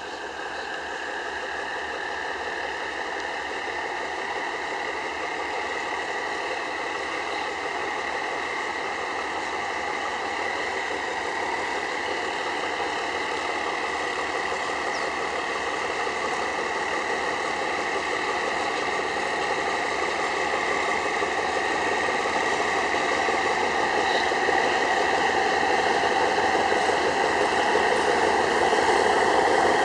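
Diesel locomotive of a passenger train set running steadily as the train reverses slowly out of the station, growing louder as it comes closer.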